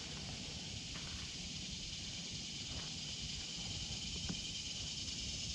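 A steady, high-pitched chorus of insects, with low rumble from wind on the microphone and a few faint ticks.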